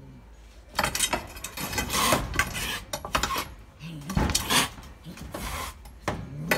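Young cat hissing and spitting defensively in a run of sharp, repeated bursts, with a short low growl about four seconds in and again near the end.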